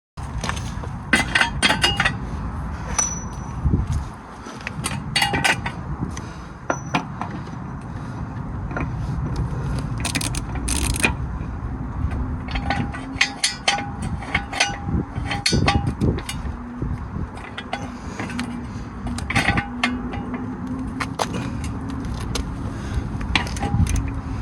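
Hand tools and metal parts clinking and knocking at irregular intervals during work on a car's driveshaft and hub, with a few heavier thuds.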